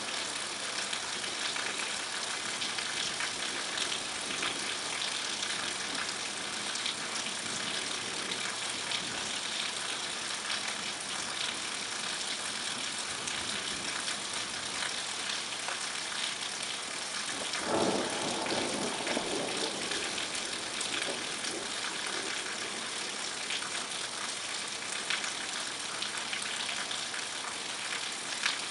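Steady rain falling, a dense hiss of drops. A brief, lower, louder rush starts suddenly about two-thirds of the way through and fades over a few seconds.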